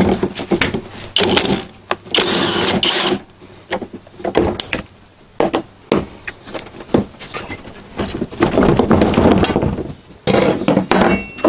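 Cordless impact driver loosening a lawn mower's steel blade bolt: a few short bursts, then one loud run of about a second. Clicks, knocks and handling noise follow as the bolt and blade are taken off.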